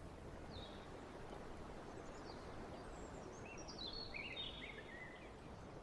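Faint outdoor ambience: a soft, even rush with bird chirps, one near the start and a short run of them about two to five seconds in.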